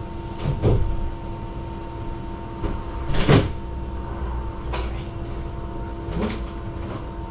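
A few separate knocks and clunks of someone handling things out of view, the loudest about three seconds in, over a steady electrical hum.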